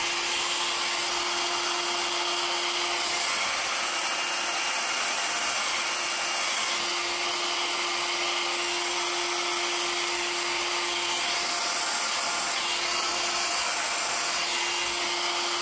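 Handheld hair dryer running steadily: rushing air over a constant motor hum. It is blowing wet acrylic pouring paint outward across a canvas to spread it into a bloom.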